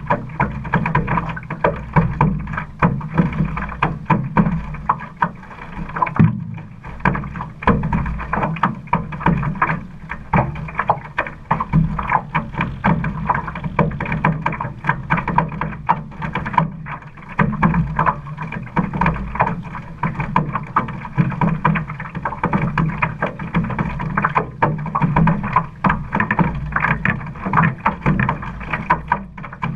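Water rushing and splashing along the hull of a one-man outrigger canoe (OC1) being paddled, picked up by a camera fixed on the hull, in an uneven, choppy wash.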